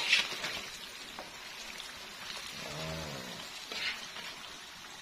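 Crispy battered chicken frying in a wok of hot oil, sizzling steadily, as the done pieces are scooped out with a metal skimmer. A sharp clink right at the start is the loudest moment, and a second brief clatter comes about four seconds in.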